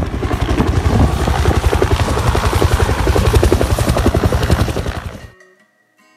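Two-bladed helicopter flying low overhead, its rotor beating in rapid, even chops over the low engine rumble. The sound cuts off abruptly about five seconds in, and quiet plucked guitar follows.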